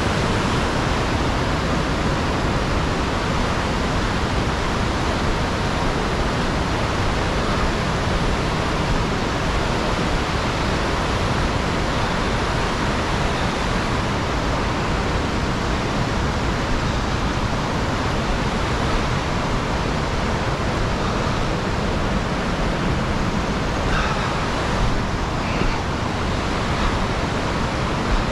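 Whitewater rapids of a mountain river rushing in a steady, loud roar.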